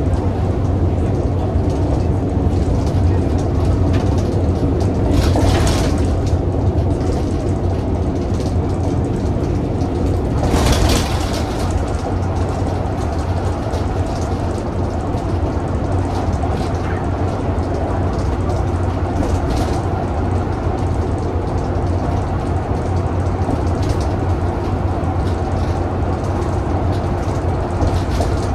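Bus's Cummins ISBe185-30 diesel engine running steadily, with a low hum and road noise. There are two brief hissing bursts, about five and eleven seconds in.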